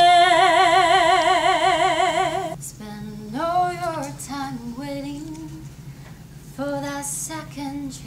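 A woman singing unaccompanied holds one long note that breaks into a wide vibrato and stops about two and a half seconds in. Another woman's voice then sings shorter, softer phrases that slide in pitch.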